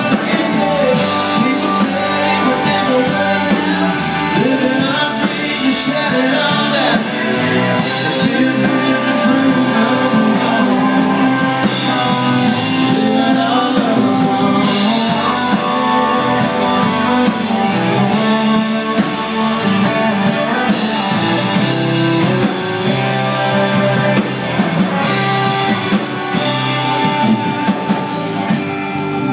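Live country-rock band playing: a woman singing over acoustic and electric guitars and drums, heard loud and continuous from the audience.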